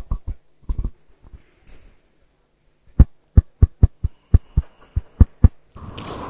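A run of about eight dull, sharp knocks, roughly three a second, after a few scattered ones. A short rush of noise follows near the end.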